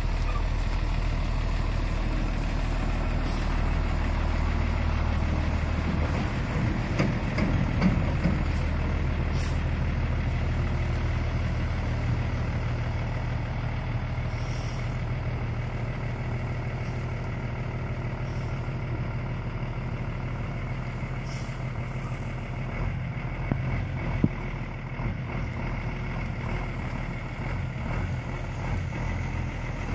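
Box delivery truck's engine running steadily as the truck turns and pulls away, with a few short high-pitched hisses, growing a little fainter near the end as it moves off.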